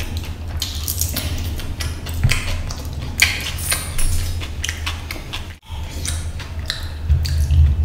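Close-miked eating sounds: a person chewing a mouthful of fish curry and rice eaten by hand, with many short, sharp mouth clicks and smacks, over a steady low hum. The sound cuts out for a moment a little past halfway.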